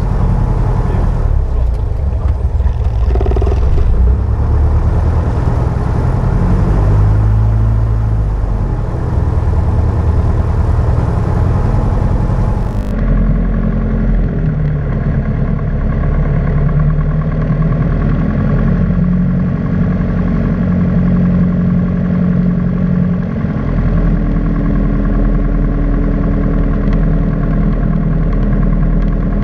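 Piper PA-28-161 Warrior's four-cylinder Lycoming engine and propeller running at low taxi power, heard inside the cabin, the engine note shifting a little in pitch with the throttle.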